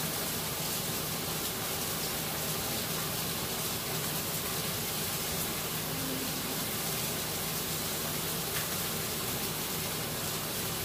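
Bone-in ribeye steak searing in hot olive oil in a cast iron pan: a steady, even sizzle, with a few faint taps.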